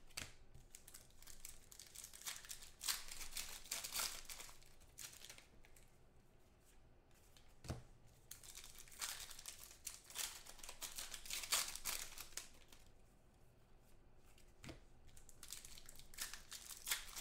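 Foil trading-card pack wrappers being torn open and crinkled, in several bursts with short pauses between, and a single sharp knock partway through.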